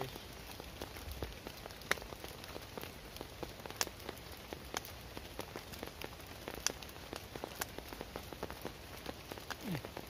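Rain falling on a plastic tarp shelter overhead: a steady hiss with many sharp, irregular drop clicks.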